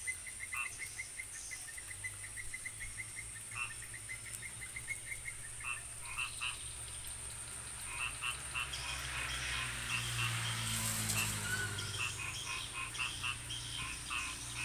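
Frogs calling in the rain: a fast, even run of clicking pulses for the first few seconds, then more and more short croaks overlapping toward the end. A steady high-pitched drone runs underneath.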